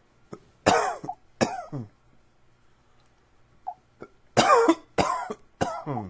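A man coughing from allergies: two coughs about a second in, then a run of three quick coughs close together in the second half.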